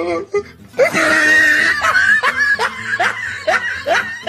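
A person laughing in a run of short rising laughs, about two to three a second, from about a second in.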